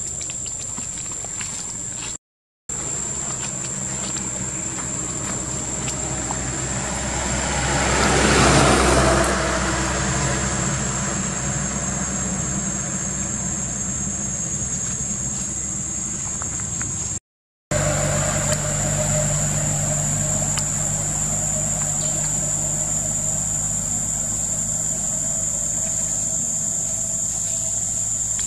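Steady outdoor background of a low engine hum under a constant high-pitched whine, with a motor vehicle passing, swelling and fading about eight to nine seconds in. The sound drops out briefly twice.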